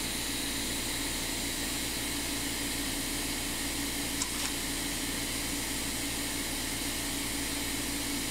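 Steady machine fan whir with a constant hum, and a single faint click about four seconds in.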